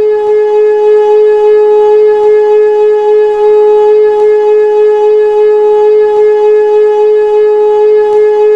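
Old Hörmann F71 electric civil-defence siren sounding loudly on one steady tone, its pitch holding level throughout.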